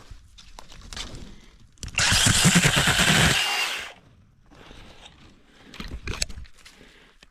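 Battery-powered mini chainsaw running in one loud burst of about two seconds, starting about two seconds in, as it cuts through small saplings. Quieter crackles and sharp clicks come before and after the burst.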